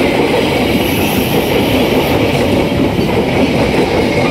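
KAI passenger coaches rolling past close by, their steel wheels on the rails making a steady, loud rumble.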